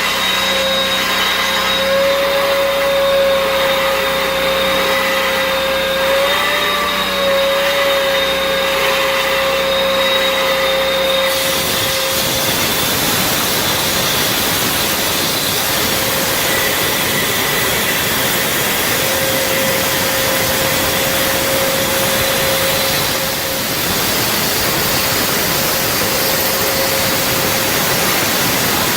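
Power concrete saw cutting through a concrete floor slab: a steady, loud motor whine over a grinding hiss. About eleven seconds in, the sound changes abruptly and the gritty cutting noise takes over, with the whine coming and going.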